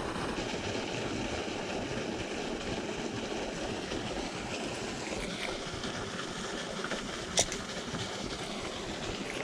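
Steady rush of fast-flowing river water, with a single sharp click about seven seconds in.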